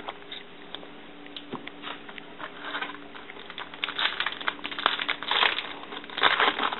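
Plastic wrapper of a hockey card pack crinkling and tearing as it is opened. It starts with a few light clicks and grows into denser, louder crinkling about halfway through.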